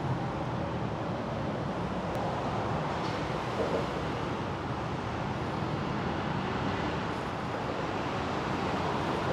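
Steady rumble of road traffic, an even, continuous noise with no distinct events.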